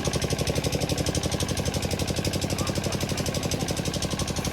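Small engine running steadily at idle, a rapid even chugging of about a dozen beats a second.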